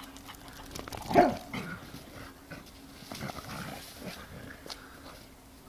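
A dog barks once, loudly, about a second in, with fainter, shorter dog sounds following as the dogs play.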